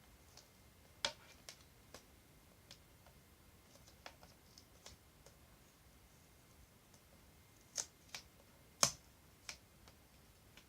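Scattered light clicks and taps of packaging and cases being handled during an unboxing, with the loudest taps about a second in and a pair of sharper ones near the end.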